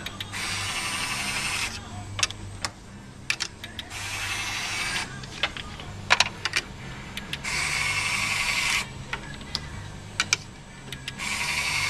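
Small Fischertechnik electric motor turning a turntable through its gear, running in four short bursts of a second or so and stopping in between. Sharp plastic clicks and taps come between the runs as blocks are set on and snapped together.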